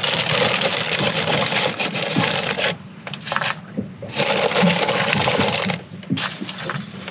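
Plastic inner bag of a cracker box crinkling as it is pulled open and crackers are taken out: two spells of loud rustling, with a pause about three seconds in.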